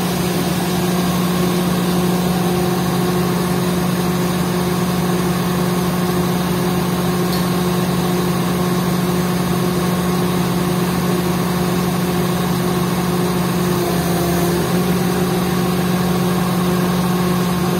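Mobile crane's diesel engine running steadily at a constant speed, with a short dip in pitch about fourteen seconds in.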